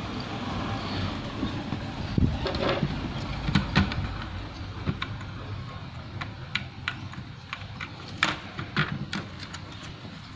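Scattered plastic clicks, taps and snaps from handling a laptop's case and parts as it is put back together after fitting RAM, over a steady low background rumble.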